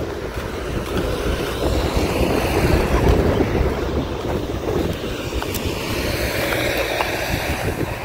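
Wind buffeting the microphone outdoors, a steady low rumbling hiss that swells in the middle.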